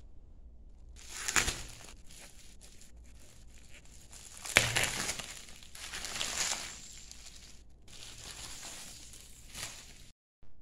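Bubble wrap being crinkled and pulled off a tea tin by hand, in several irregular rustling bursts, the loudest about halfway through. The sound cuts off suddenly near the end.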